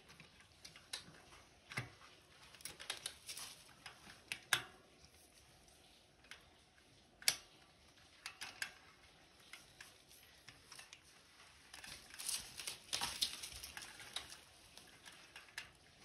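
Hands handling a mountain bike's disc brake caliper and wheel: scattered small metallic clicks and taps, a few single sharp ones spread out, then a busier patch of taps and rattles about three-quarters of the way through.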